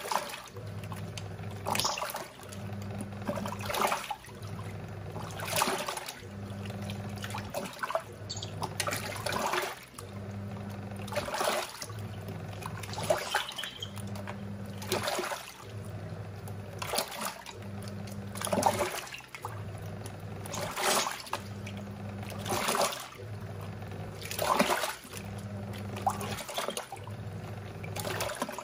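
Giantex EP23113GB top-loading washing machine agitating a wash: the motor hums in short strokes of about a second with brief pauses between them, and water sloshes in the tub at each stroke.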